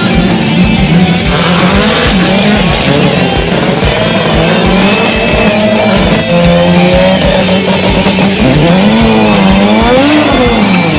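Drag-racing cars' engines revving and running, their pitch rising and falling, mixed with background music.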